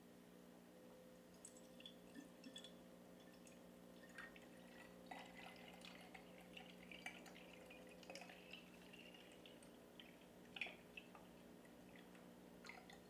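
Faint trickling and dripping of liquid coolant being poured by hand into a PC water-cooling loop, with small scattered ticks throughout.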